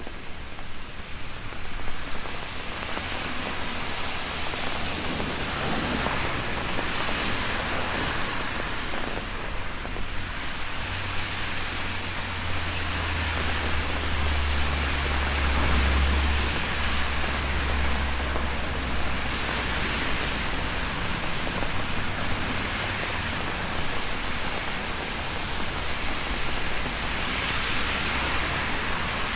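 Heavy rain drumming steadily on an umbrella. A low rumble swells in the middle and fades away again.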